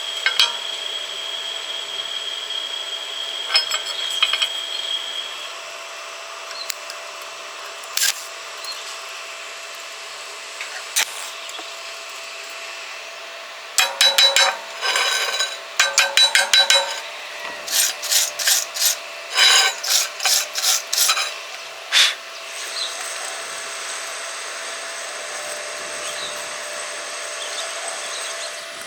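Metalworking at a welding bench: a steady hiss with a faint hum and a few sharp clicks. In the middle come several seconds of quick, rhythmic scraping strokes, like a wire brush or file worked back and forth on steel.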